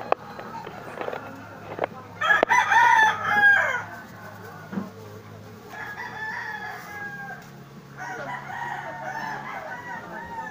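A rooster crows loudly about two seconds in, one call lasting about a second and a half, with fainter crowing calls later on.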